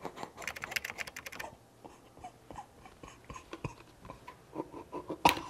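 A quick run of about a dozen sharp clicks and rattles as a plastic toy sword is slowly drawn out of the mouth, then scattered clicks and short strained throat noises, with one loud click near the end.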